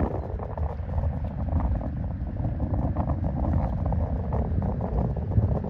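Wind buffeting the microphone: a steady low rumble that rises and falls in small gusts.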